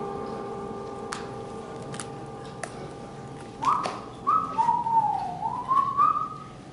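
Lingering ringing notes of mallet percussion fade away, then about three and a half seconds in a whistled tune starts: a few held notes that slide down and back up in pitch. A few faint clicks are scattered through.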